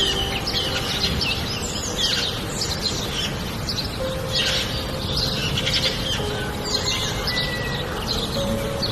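Steady rumble of rain and falling water, with birds chirping over it again and again.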